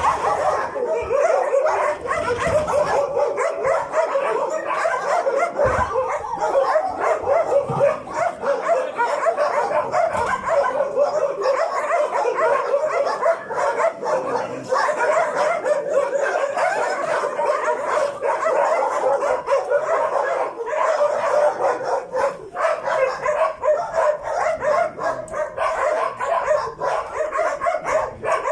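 A kennel full of dogs barking and yelping over one another without a break.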